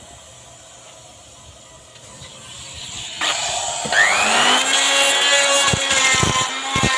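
Electric wood router starting up: its motor whine rises to full speed about four seconds in and then runs steadily, with a few sharp knocks near the end.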